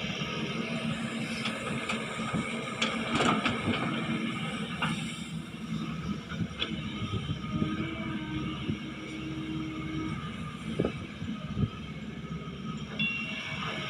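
Excavator running with a steady engine drone and several sharp knocks as it digs. A steady whine rises over it for a couple of seconds past the middle.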